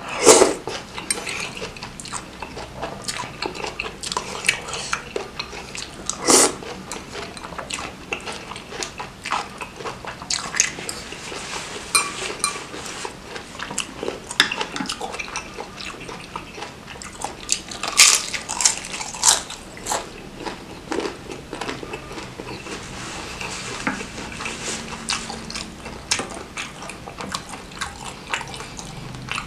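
Close-up eating sounds of noodles and bakso meatball soup: slurping and chewing, with a spoon and fork clicking against ceramic bowls. Sharp, louder bursts come just after the start, about six seconds in and about eighteen seconds in.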